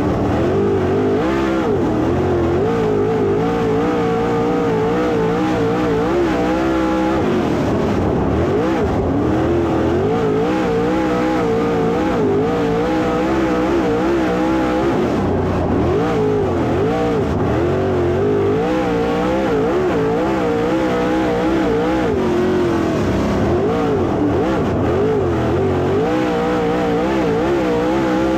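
Dirt late model race car engine at racing speed, its pitch rising and falling over and over as the throttle is opened and lifted.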